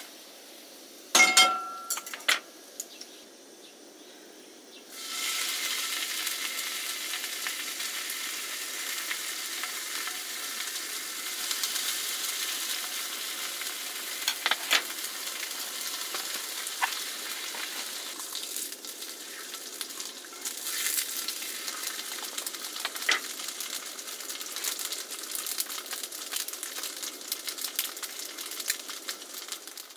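Food frying in a hot pan. A ringing metallic clank comes about a second in, then a steady sizzle starts suddenly about five seconds in, with scattered taps of a utensil in the pan.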